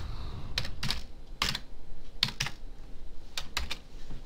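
Computer keyboard keys being pressed one at a time: about eight or nine slow, unevenly spaced keystrokes typing out a short word.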